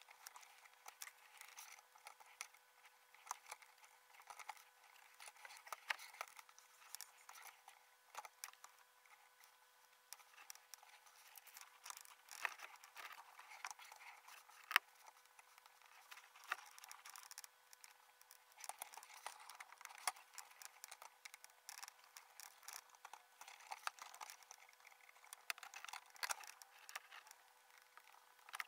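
Faint, rapid scattered clicks and scratches of laparoscopic instruments (Karl Storz needle holder and grasper) handling suture on a fabric practice model, sped up fivefold, over a steady faint hum.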